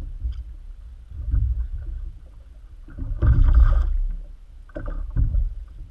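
Water slapping against the hull of a plastic fishing kayak in three noisy surges, the middle one the loudest, over a low rumble.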